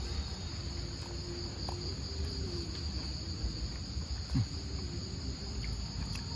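Night insect chorus, a steady high-pitched drone, over a low rumble of wind on the microphone. A brief low sound comes about four seconds in.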